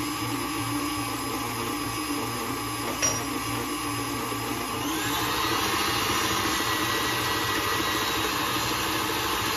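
Tilt-head stand mixer running steadily, its beater churning butter, brown sugar and egg into cookie dough in a glass bowl. There is a brief click about three seconds in, and about five seconds in the motor's pitch rises and it runs on at a higher speed.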